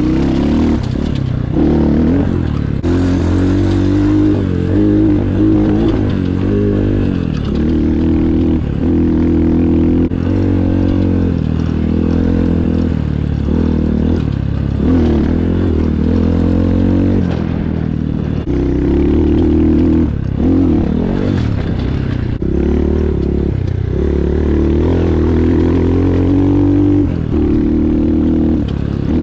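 Apollo RFZ 250cc four-stroke dirt bike engine being ridden hard, revving up and down over and over as the throttle opens and closes, its pitch climbing and then dropping back with short dips between pulls.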